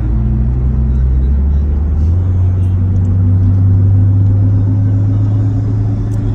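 Van engine and road noise heard from inside the cab while driving: a steady low drone whose pitch steps up about two seconds in as the engine pulls harder.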